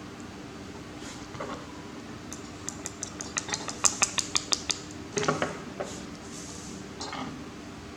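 Small hard parts being handled during a toy car repair: a quick run of light clicks and clinks, about five a second, then a short scrape.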